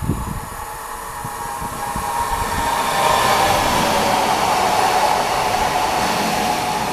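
Newag Impuls electric multiple unit passing close at speed. A rush of wheels on rail and air builds to its loudest a few seconds in, with a whine from the traction drive that slides down in pitch as the train goes by.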